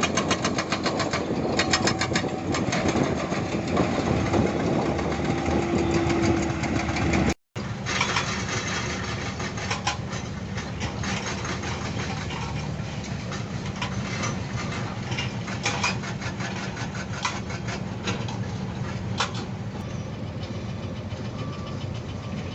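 Heavy diesel construction machinery running, with dense clattering over the engine. The sound cuts out for a moment about seven seconds in. After that a steadier engine runs with occasional sharp clacks.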